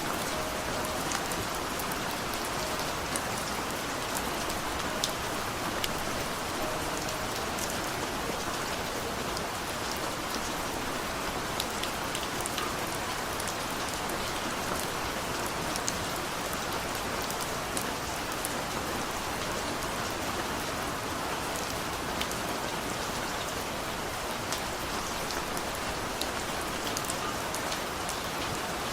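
Steady rain falling, with individual drops ticking on a surface.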